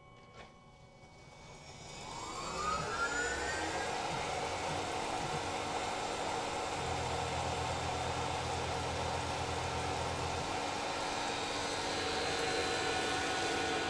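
Spindle motor of a Tormach PCNC 1100 CNC mill spinning up with a rising whine over about two seconds, then running steadily as the second operation begins. A lower hum joins for a few seconds in the middle.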